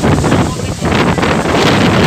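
Cyclone wind blasting against the microphone with heavy rain, in surging gusts of loud rushing noise that ease briefly just under a second in and then build again.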